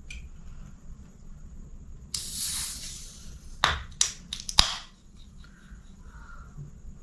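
Aluminium drink can opened by its ring-pull. A hiss of escaping gas starts suddenly about two seconds in and lasts about a second, then four or five sharp metallic clicks come as the tab is levered.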